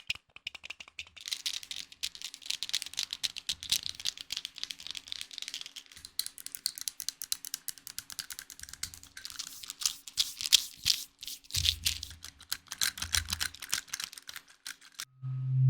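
Rapid, dense clicking and tapping, many clicks a second with uneven loudness, as an ASMR trigger. It stops about a second before the end, and a loud low steady hum starts.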